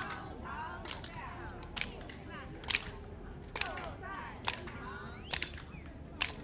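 Sharp cracks, about one a second, over a background of higher pitched voices or calls.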